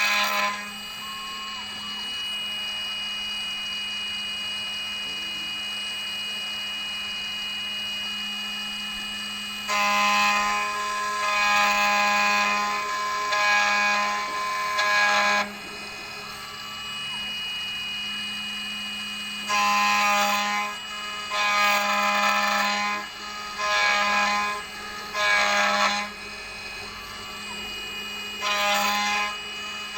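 CNC key-cutting machine running with a steady hum, its cutter giving a high-pitched whine in several passes of a few seconds each as it mills a car key blank.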